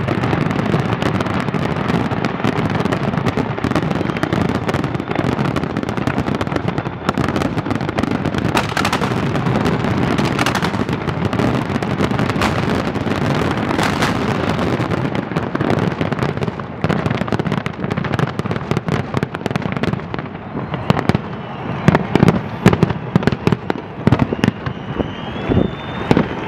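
A large professional fireworks display: dense, continuous crackling and popping from many aerial shells and comets firing at once. After about twenty seconds it thins out to separate loud booms of single shell bursts.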